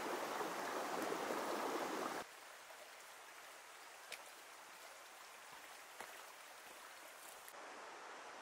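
A shallow, clear river running over a stony bed, close and loud for about two seconds, then cutting off suddenly to a quieter steady hush of more distant moving water with a couple of faint clicks. The water sound grows a little louder again near the end.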